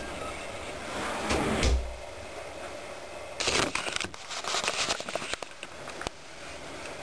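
An interior door thuds shut about a second and a half in. After it comes a run of clicks and rustling from handling noise around the middle.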